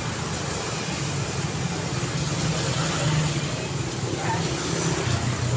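Steady city street traffic: cars and motorbikes passing, with an engine rumble that swells a little about three seconds in and again near the end.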